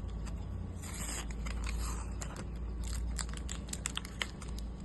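Small clicks and brief rustles of packaging being handled, over a steady low hum.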